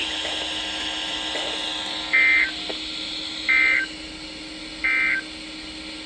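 NOAA Weather Radio end-of-message (SAME EOM) data signal from a weather radio's speaker: three short, identical warbling digital tone bursts about a second and a half apart, marking the end of the flood warning broadcast. A faint steady hum runs under it.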